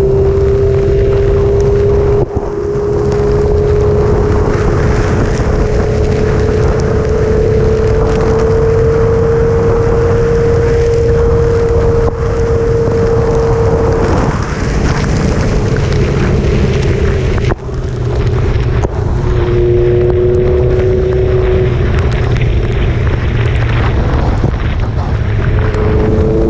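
Sport motorcycle engine running at cruising speed, its pitch drifting slowly up, dropping, and rising again near the end, under heavy wind noise on the microphone. Two brief dips in loudness, about two seconds in and again past halfway.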